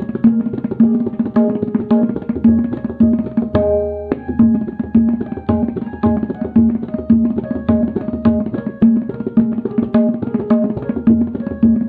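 Background music: a steady rhythm of pitched drum strokes, with a short break in the pattern about four seconds in.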